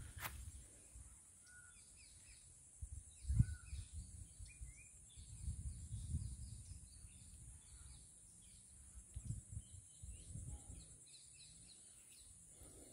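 Small birds chirping and twittering, many short high calls scattered throughout, with a few soft low thumps, the strongest about three and a half seconds in.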